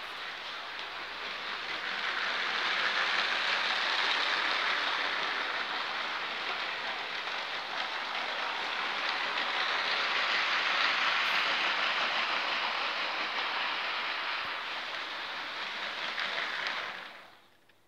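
Two battery-powered Lego trains, among them the LEGO City 60197 passenger train, running on plastic track: a steady dense whirring rattle of motors and plastic wheels on the rails. It swells twice as the trains pass close, then dies away quickly near the end.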